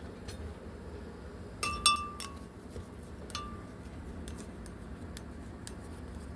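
Glass containers clinking as they are handled: a quick cluster of clinks about two seconds in and another a second later, each leaving a brief ringing tone, then a few lighter ticks.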